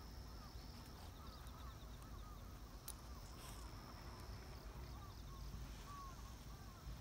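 Quiet rural outdoor ambience of autumn fields: a steady high insect-like trill with rapid ticking that stops a little past halfway, and many soft repeated chirps. There is one sharp click about three seconds in, over a low wind-like rumble.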